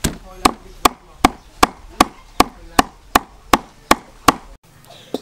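Steel meat cleaver chopping raw pork on a thick wooden chopping board: an even rhythm of about two and a half sharp chops a second, stopping suddenly near the end.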